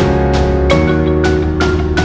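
Background music: a melody of short ringing notes, about three a second, over a steady bass.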